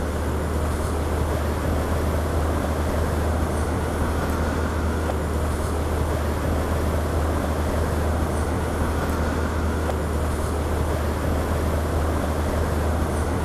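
Steady rush of wind and road noise over a low, even drone from a motorcycle riding at road speed.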